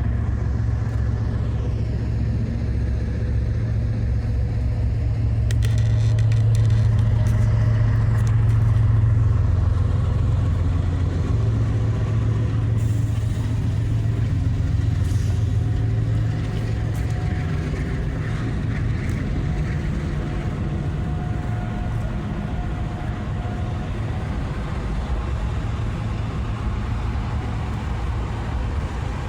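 BNSF freight train rolling past with a steady low rumble, with a spell of sharp clicks about six seconds in.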